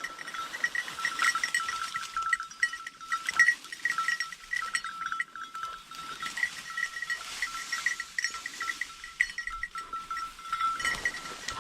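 Bell on a bird dog's collar jingling continuously as the dog moves through cover, with light rustling of brush; the ringing stops about eleven seconds in.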